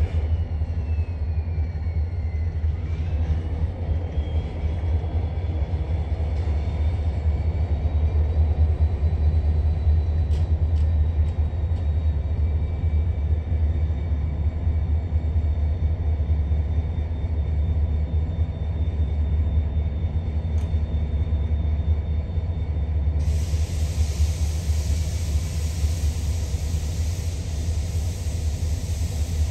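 Lake State Railway diesel freight locomotives drawing near with a steady, deep engine rumble. A loud hiss comes in suddenly about 23 seconds in.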